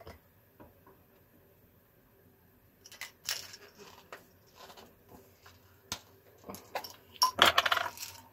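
Small hard 3D-printed plastic parts being handled and set down: a click as a piece is placed, then scattered taps from about three seconds in and a busier second of clattering near the end.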